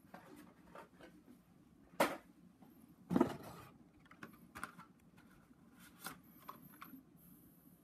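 Scattered light clicks and rustles of carded, blister-packed Hot Wheels die-cast cars being handled, with two sharper knocks about two and three seconds in.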